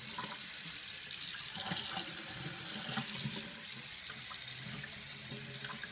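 Water running steadily from a Delta Victorian-style kitchen faucet into the sink while the spout is swung at its swivel, a leak test of the freshly replaced O-rings, which hold with no leak.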